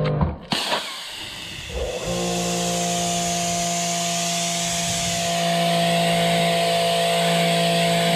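Giraffe Tools 2,500 PSI electric pressure washer's motor and pump running with a steady hum, while water hisses from a 15-degree nozzle onto concrete. The motor winds down and cuts out right at the start, then starts up again about two seconds in and runs steadily.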